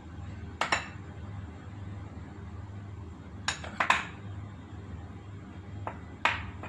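A metal spoon clinking against a porcelain bowl while flour is worked into the pancake batter: a double clink just before a second in, a quick run of three around four seconds, and one or two more near the end, over a steady low hum.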